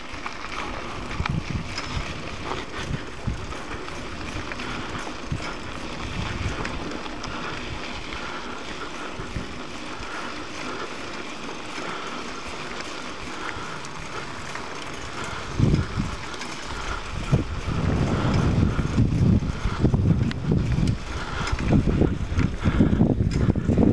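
Bicycle riding on a dirt road: wind rumbling on the microphone over the rattle of the bike on the rough surface. The wind noise grows louder and gustier about two-thirds of the way through.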